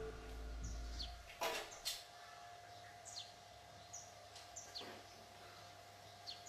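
Birds chirping, repeated short high calls that drop in pitch, with a few light sharp knocks or clinks about one and a half, two and five seconds in.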